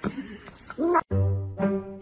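A cat gives one short, rising-then-falling cry near the end of the first second. The sound breaks off, and background music with deep plucked bass notes starts.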